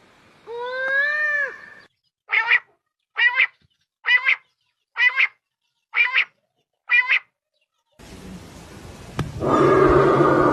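A run of animal calls: one drawn-out call that rises and falls in pitch, then six short calls in an even series. After a short silence, a rough, noisy call starts and grows louder near the end.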